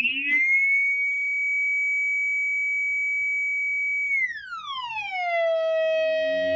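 Electro-Harmonix Poly Chorus pedal in flange mode with feedback at maximum, self-oscillating into a steady, high, whistle-like tone. About four seconds in, the tone glides smoothly down and settles on a lower steady pitch, like a siren. Lower notes start to come in near the end.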